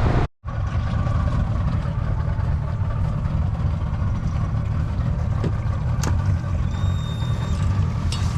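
Boat's outboard motor running steadily while underway, with a faint short high whistle near the end.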